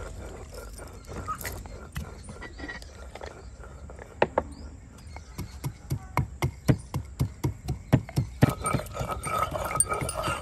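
Wooden pestle pounding black peppercorns in a wooden mortar: a steady run of sharp knocks, about three a second, starting about four seconds in.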